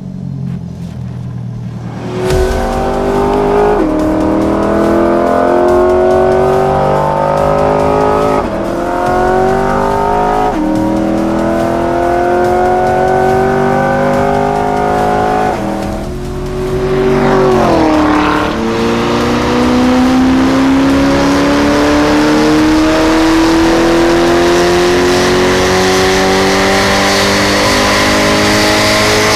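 C8 Corvette's 6.2-litre V8 through a Lingenfelter Extreme-S stainless exhaust, accelerating hard. The note climbs and drops sharply with a series of quick upshifts about every two seconds. After a short lull comes one long, steady climb in revs.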